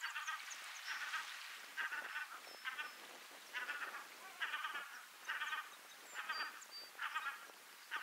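Birds calling: a harsh, nasal call repeated about once a second, with faint high chirps above it.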